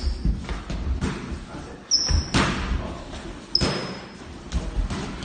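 Padded boxing gloves thudding as two sparring partners throw jabs, with shoes squeaking briefly on a wooden floor three times.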